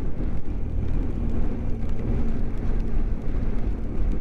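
BMW GS motorcycle running steadily at road speed in the rain: a continuous low engine drone under road and wind noise. A steady hum comes in about a second in.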